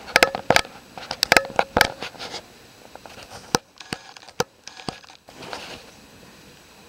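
Snow crunching and crackling in a quick run of sharp clicks over the first two and a half seconds, then a few scattered single clicks.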